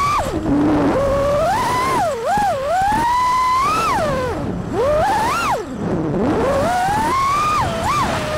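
FPV quadcopter's brushless motors, on newly installed speed controllers, whining in one tone whose pitch sweeps sharply up and down with the throttle: several deep drops as the throttle is cut, each followed by a quick climb back to a high whine.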